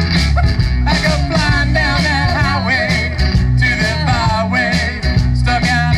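Live party band playing an upbeat number. A wavering melody line, possibly a singer, runs over a steady bass and drums.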